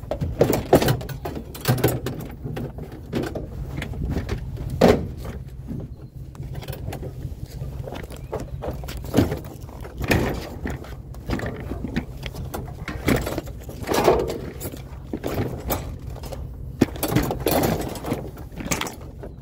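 Irregular knocks, clanks and rattles of scrap items being handled and loaded, over a steady low engine hum from an idling vehicle.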